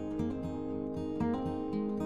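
Background music: acoustic guitar being strummed and plucked.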